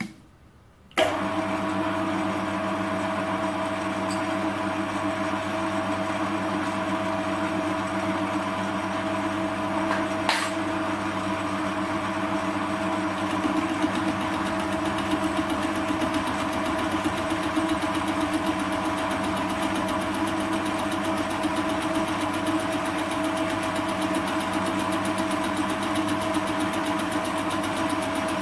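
Metal lathe switched on about a second in, its motor and gearing running steadily at 460 RPM with a steady whine, spinning a faceplate rigged as a large fly cutter. A brief click comes about ten seconds in. From about halfway the sound turns rougher as the work is fed into the cutter for a facing cut.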